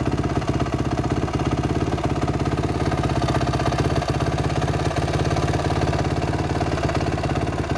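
2006 Honda CRF450R's single-cylinder four-stroke engine idling steadily, an even, unchanging beat with no revving.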